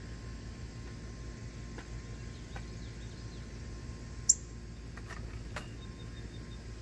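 Northern cardinal cracking seeds at a platform feeder: faint, scattered clicks of its beak on the seed, with one sharp, high, much louder click about four seconds in.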